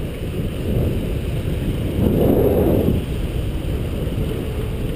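Wind and road rumble rushing over a GoPro action camera's microphone on a moving bicycle, with a louder swell of rushing noise lasting about a second, around two seconds in.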